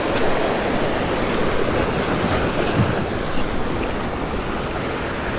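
Steady sea surf washing, with wind buffeting the microphone.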